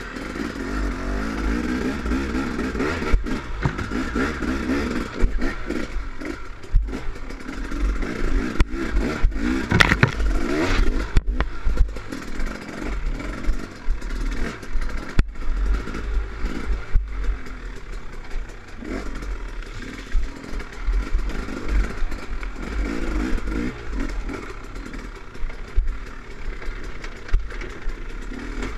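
2013 KTM 300 X-CW's single-cylinder two-stroke engine revving up and down through the gears on a rough trail, with the bike clattering over bumps and wind buffeting the microphone. Revs surge loudest about ten seconds in.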